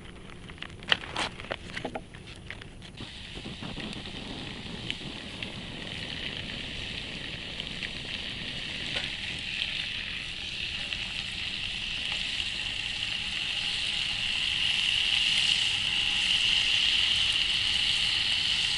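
A few metal clinks on the pan in the first seconds, then sausages sizzling in a crepe pan over a campfire, the sizzle growing steadily louder.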